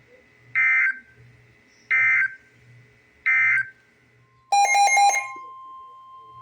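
Weather-radio SAME data bursts: three short, identical warbling squawks about a second and a half apart, the end-of-message code that closes a warning. They are followed by a harsher data burst and then a steady alarm tone that begins about two-thirds of the way in, the 1050 Hz weather radio alert tone.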